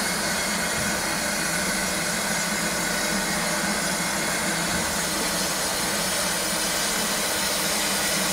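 Ivatt Class 2 steam locomotive hissing steadily as it stands in steam, with steam escaping from the front by the cylinders. No exhaust beats.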